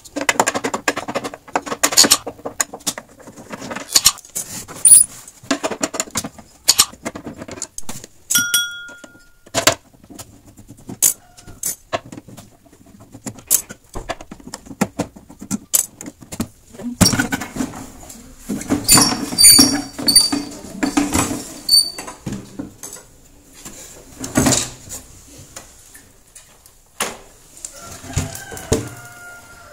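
Irregular clicks, knocks and scraping of a CRT television's plastic back cover and its screws being worked loose and pulled off as the set is taken apart, busiest a little past the middle.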